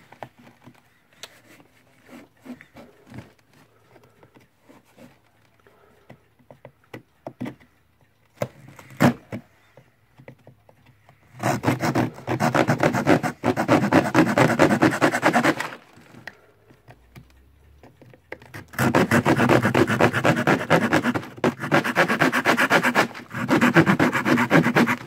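Small hand saw cutting thin plywood in rapid back-and-forth strokes. Only faint clicks and taps for the first ten seconds or so, then a run of sawing of about four seconds and a longer one from about nineteen seconds in, with a brief pause between.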